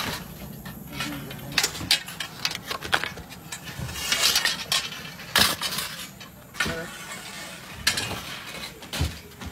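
Irregular sharp metal clinks and knocks of tandoor bakers' rods, hooks and scrapers striking and scraping the ovens. The loudest knock comes about five and a half seconds in.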